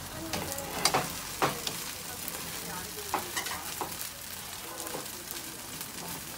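Seafood pajeon sizzling in oil in a frying pan while a slotted metal spatula scrapes and presses it against the pan. Sharp clinks of the spatula come about a second in and again near a second and a half, with a smaller one around three seconds.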